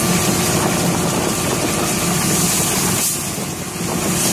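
An engine running steadily, a low drone with a faint constant whine over it, dipping briefly about three seconds in.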